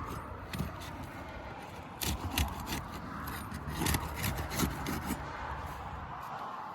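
Asphalt roofing shingles being pried and scraped loose from their seal strips with a hand tool. Steady scraping and rubbing, with clusters of sharp clicks and cracks about two seconds in and again around four seconds in.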